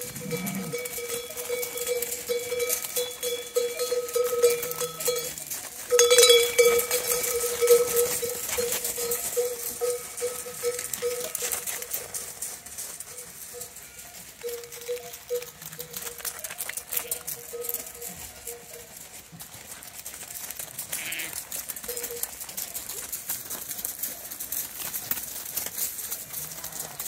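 A bell on a grazing sheep clanking over and over, nearly without pause for the first half, then in scattered short rings. Light scuffing of hooves on gravel underneath.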